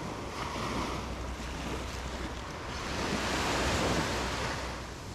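Ocean surf breaking and washing up the beach, swelling louder about three seconds in and easing off near the end, with a low wind rumble on the microphone.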